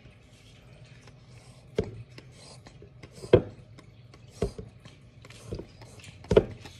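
Plastic bag being squeezed and handled over a drinking glass: faint rustling broken by about five sharp clicks or knocks spread out, the loudest in the middle and near the end.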